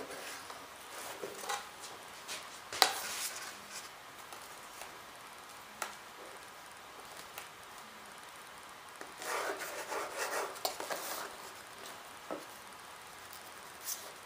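Quiet bench-work handling sounds of a steel square and a pencil on a wooden sheet: a few sharp clicks as the square is set down, the loudest about three seconds in, and a scratchy stretch of pencil marking and sliding near the middle.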